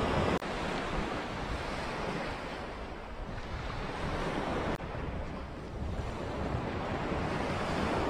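Small waves washing onto a pebbly shore, with wind buffeting the microphone; the surf noise swells and eases every few seconds.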